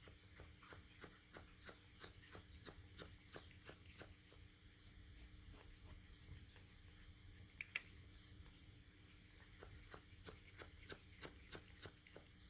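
Faint, rhythmic sounds of a cat chewing and licking wet food from a slow-feeder bowl, small clicks about three a second, with one sharper click a little past halfway.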